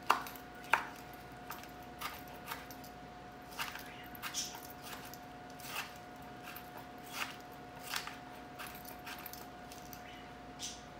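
Kitchen knife dicing a tomato on a plastic cutting board: irregular knocks of the blade against the board, the two sharpest near the start. A faint steady hum runs underneath.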